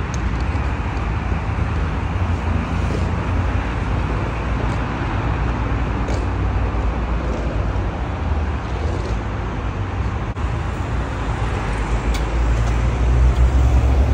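Steady low rumble of urban background noise, with a few faint ticks.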